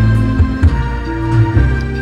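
Instrumental backing music with a strong bass line and held keyboard-like tones, a karaoke track playing loud through speakers.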